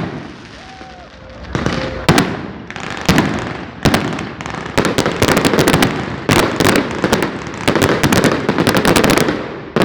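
Firecrackers going off: single sharp bangs about a second apart, then a dense rapid crackle of pops through the second half, and one more bang near the end.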